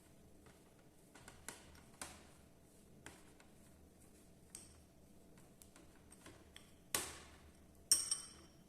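Scattered light taps and clicks of kitchen utensils and containers being handled, a few of them short ringing clinks. A louder knock comes about seven seconds in, then a ringing clink about a second later.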